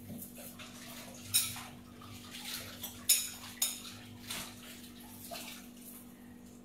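Dishes, pots and cutlery clinking and clattering at a kitchen sink, with several sharp clinks, over water running from the tap.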